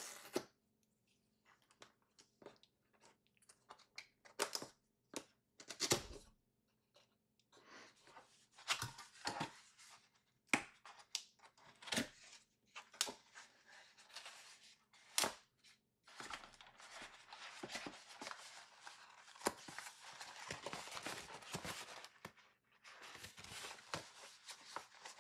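Cardboard box being opened by hand: scattered taps, scrapes and tearing of the cardboard flaps and seal, then several seconds of steady crinkling as a paper wrap is pulled off the contents.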